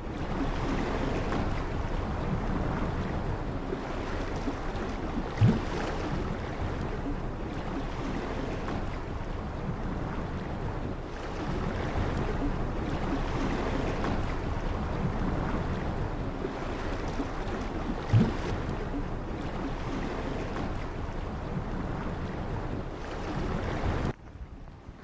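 Steady rush of wind and waves out on the water, with two brief low thumps, one about five seconds in and one about eighteen seconds in. The rushing cuts off suddenly near the end.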